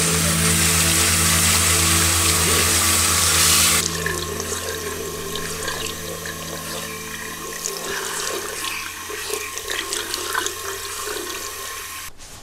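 Bathroom sink tap running, strong for about the first four seconds and then softer, with small splashes as water is scooped up in the hands to wash the face.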